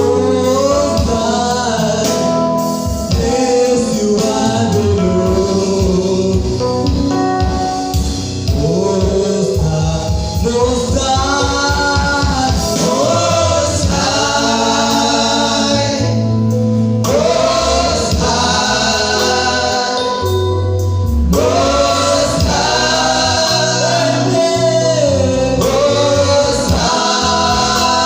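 Gospel worship song: a choir singing over a bass line and a steady beat.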